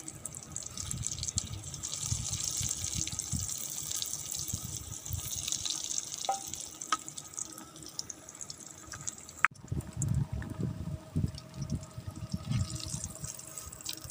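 Hot oil sizzling and crackling in a steel wok as pieces of chicken deep-fry over a wood fire. The sound breaks off sharply about nine and a half seconds in, then goes on with low bumps under the sizzle.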